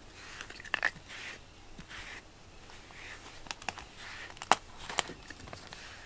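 A pink grooming brush stroked along a cat's fur, a soft swish about once a second. A few sharp clicks come in between, the loudest about halfway through.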